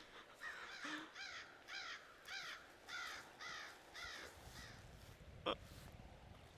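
A bird cawing: a quick run of about nine short, harsh calls. A single sharp click follows about a second before the end.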